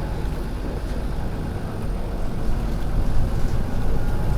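Volvo B7RLE bus's six-cylinder turbodiesel engine running under load, a deep rumble that slowly grows louder. Near the end a faint high turbo whistle begins.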